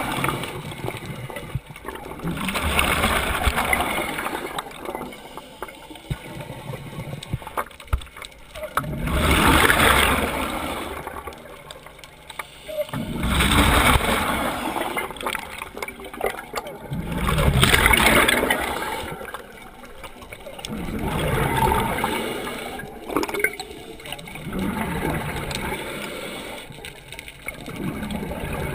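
Scuba diver breathing through a regulator underwater: a hissing inhale and a gurgling burst of exhaled bubbles come in surges every few seconds.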